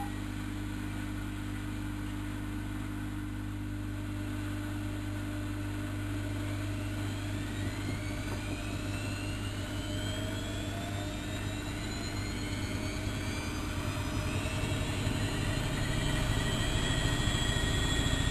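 Bauknecht WAK7760 washing machine with its drum speeding up: a steady low hum under a motor whine that climbs in pitch, growing louder toward the end.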